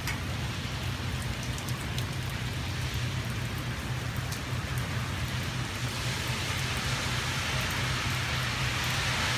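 Steady rain falling, with scattered ticks of close drops, growing louder and heavier about six seconds in.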